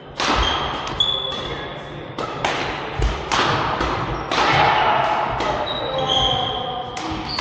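A badminton rally: rackets hitting the shuttlecock in sharp cracks about every half second to second, with short squeaks of court shoes between the hits.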